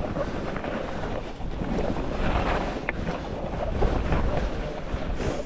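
Wind buffeting the GoPro's microphone together with the rushing hiss of skis running over snow on a downhill run.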